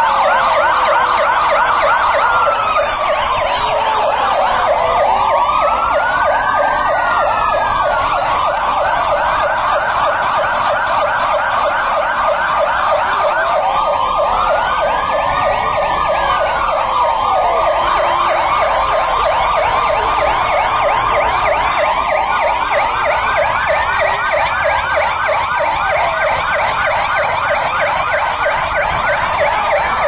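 Several fire engine sirens sounding together: a fast, continuous warbling yelp with slower wails rising and falling every few seconds over it.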